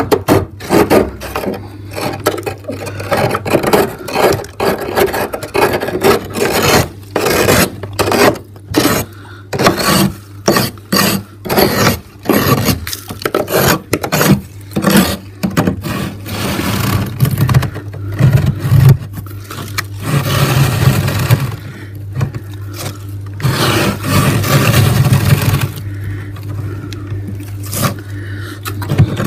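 A metal spoon scraping thick frost off the inside walls of a freezer. It goes in quick, irregular strokes through the first half and in longer, continuous scrapes later. A steady low hum runs underneath.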